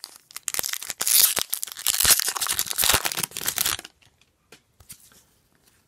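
Foil wrapper of an Upper Deck hockey card pack being torn open and crinkled by hand, a loud rustling tear lasting about three and a half seconds.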